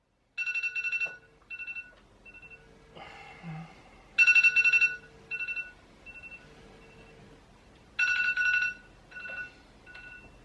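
Old-style telephone ringtone trilling in short bursts that repeat about every four seconds, each burst followed by fainter, fading echoes.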